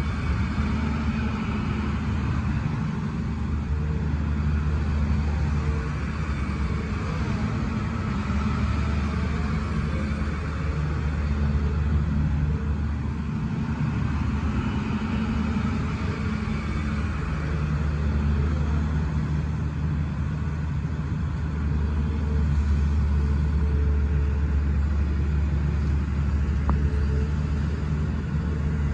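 Cummins diesel engine of a Hyundai R210 crawler excavator running steadily with a low, even rumble while the upper structure slews and the boom and arm move.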